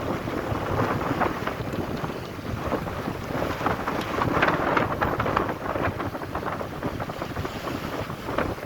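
Strong wind buffeting the microphone on a small fishing boat at sea, with crackly splashing of choppy water against the boat. It peaks about halfway through.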